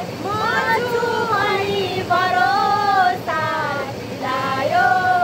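A female voice singing a melody, with long held notes that waver slightly and glide between pitches.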